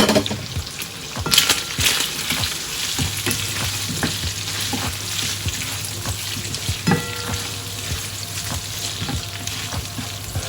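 Leftover chicken and pork adobo sizzling in a frying pan as it heats through, with scattered knocks and scrapes of a utensil stirring it.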